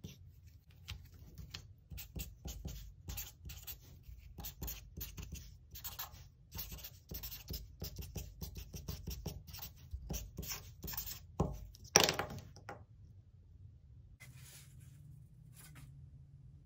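Black permanent marker writing by hand on paper, many short scratchy strokes as the letters are drawn. About twelve seconds in comes one much louder rush of noise that dies away within a second.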